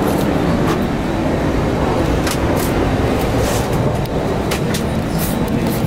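Steady low rumble of a moving vehicle, with frequent short clicks and rattles over it.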